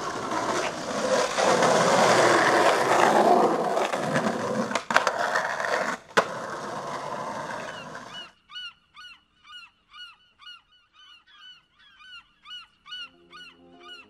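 Skateboard wheels rolling on concrete, with a few sharp clacks of the board, for about eight seconds until the sound cuts off. After that, a bird calls over and over, about two short calls a second.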